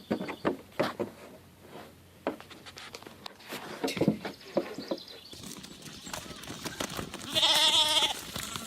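Scattered knocks and clatter, then one long, wavering animal call about seven seconds in, the loudest sound here.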